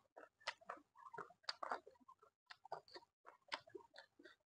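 Faint mukbang eating sounds of a person chewing beef curry with the mouth close to the microphone: irregular small wet smacks and clicks, several a second.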